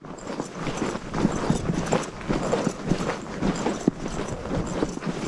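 Footsteps crunching through fresh snow on a concrete pier, at an even walking pace of about two steps a second.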